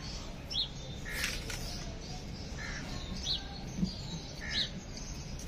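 Birds calling: short calls about once a second, some high and some lower, over a steady low background rumble.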